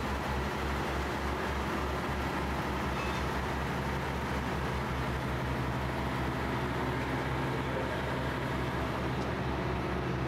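Steady low drone of an idling diesel engine, even and unbroken, over the hum of street traffic.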